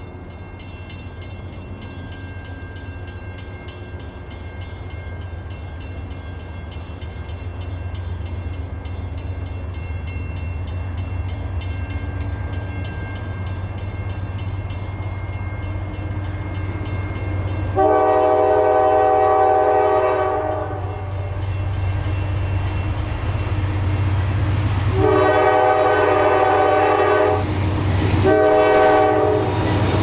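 GE C40-8 diesel locomotives running under power, their engine drone growing steadily louder as the train approaches. About two-thirds of the way in, the locomotive's air horn sounds two long blasts and then a short one, the pattern of a grade-crossing signal.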